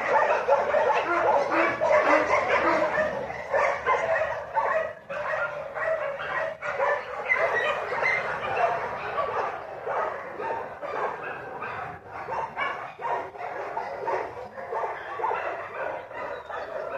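Dog barking and whining in high yips, almost without pause. It is loudest in the first few seconds and a little quieter after that.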